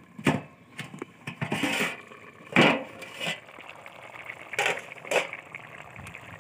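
A steel cooking-pot lid being handled and lifted off the pot: a string of sharp metallic knocks and clanks, the loudest near the middle, over a pot of rice boiling underneath.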